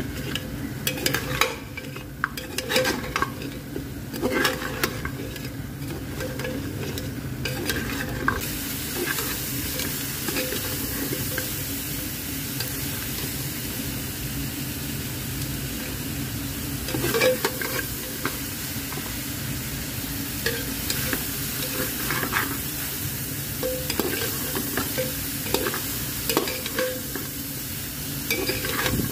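Perforated metal skimmer scraping and clinking against a metal pot as mutton pieces are stirred, in repeated strokes. From about eight seconds in, a steady sizzle of the meat frying runs under the stirring.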